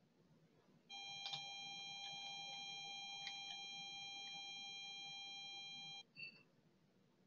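A steady high electronic tone of several pitches at once, coming in suddenly about a second in and cutting off suddenly about five seconds later, with a couple of faint computer mouse clicks over it.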